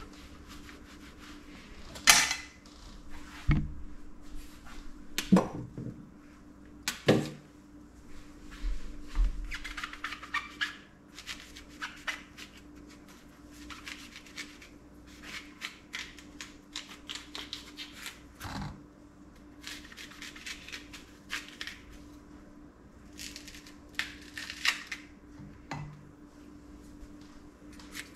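A chef's knife cutting a yellow summer squash over a plate, giving scattered knocks and clicks of the blade, the squash and the plate, the sharpest about two seconds in. Softer rustling comes and goes over a faint steady hum.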